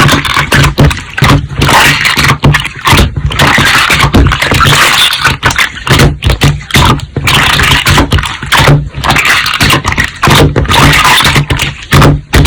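Slime being squeezed, pressed and stretched by hand, with a dense run of sticky crackling pops and squelches.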